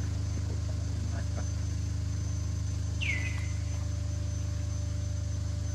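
A steady low hum, with one short high call sweeping down in pitch about three seconds in.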